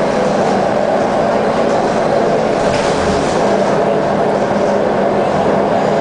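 Cabin noise inside a Scania L94UB single-deck bus on the move: the Scania DC9 diesel engine drones steadily under road and tyre rumble, at an even level. A brief hiss rises over it about three seconds in.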